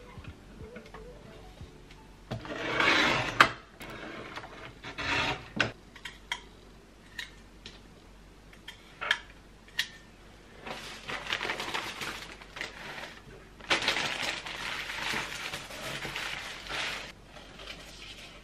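Paper trimmer cutting card: the blade is slid along its rail with a swish that ends in a sharp click about three seconds in, followed by a second shorter swish and scattered small clicks and taps. Longer stretches of paper rustling follow in the second half.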